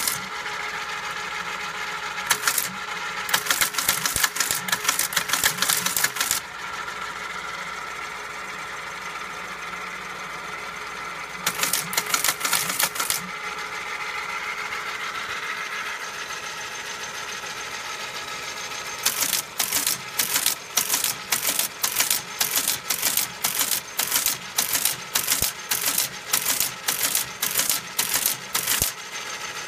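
AN/UGC-77 teletype running: its motor hums steadily while the mechanism clatters in bursts of rapid clicking. In the second half comes a longer run of evenly spaced clacks, about two a second.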